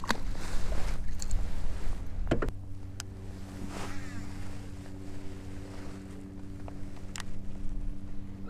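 Fishing kayak out on the water with wind buffeting the microphone. A low rumble eases off about two and a half seconds in, leaving a steady hum, and a few sharp knocks sound against the hull or gear.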